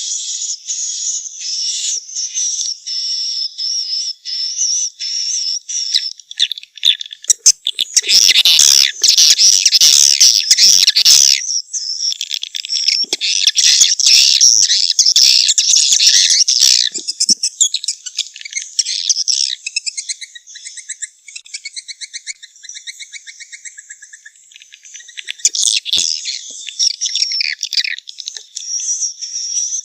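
Edible-nest swiftlet calls: a dense chorus of high chirps and fast twittering trills, louder about a quarter of the way in and again near the middle. It is the kind of call recording that is played in swiftlet nest houses to lure the birds in.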